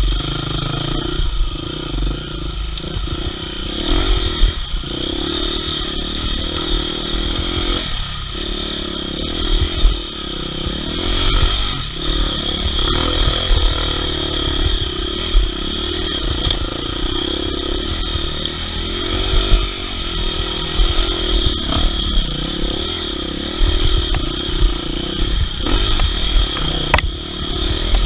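Dirt bike engine running on a trail, the throttle easing off and picking up again several times, with low rumbling knocks on the microphone.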